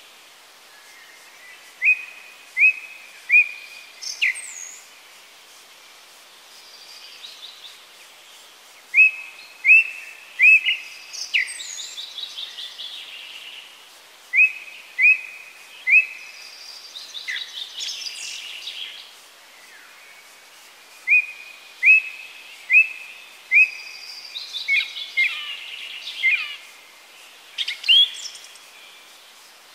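Songbirds singing in woodland: one bird repeats a short clear note three or four times in a group, again and again, while others add faster descending trills between the groups.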